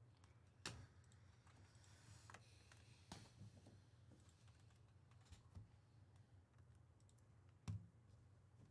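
Near silence with a low room hum and a few soft, short clicks and taps, three of them clearer than the rest.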